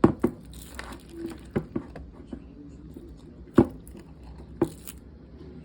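A few sharp knocks and clicks of objects being handled and set down, with soft rustling between them; the loudest knocks come right at the start and about three and a half seconds in.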